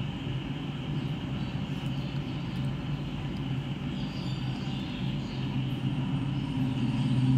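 Steady background noise, a low rumble with a faint hiss, with no distinct knocks or clicks from the stand and monitor being handled.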